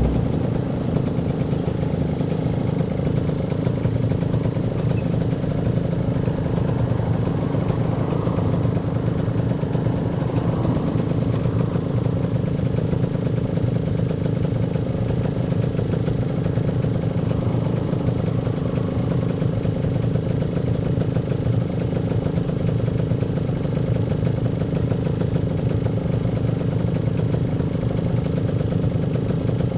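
Motorcycle engine running at a steady, even pitch, with a constant rushing noise over it.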